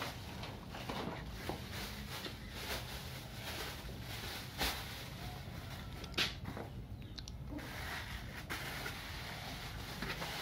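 Kitchen handling noises: scattered light knocks and clatter of pots, dishes and utensils being moved, with two sharper knocks about four and a half and six seconds in, over a low steady hum.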